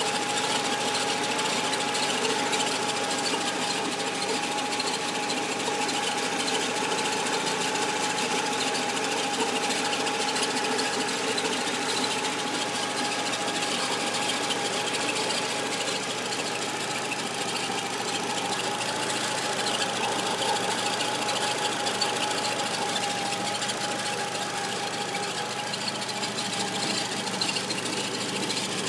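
Peugeot 206 running with a strange noise, a steady whine over the engine sound, that was cured by replacing the clutch kit.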